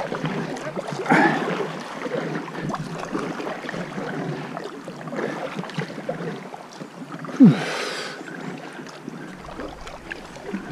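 Double-bladed paddle strokes from an inflatable kayak, the blades dipping and splashing in calm water. About seven and a half seconds in comes one brief, louder sound with a falling pitch.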